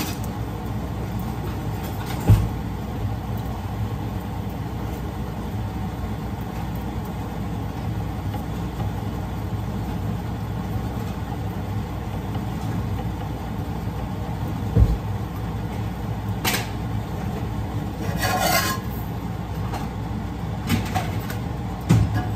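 A metal spatula knocks against a cast-iron frying pan a few times over a steady low hum of kitchen noise, with a short scrape about eighteen seconds in, while chapatis cook.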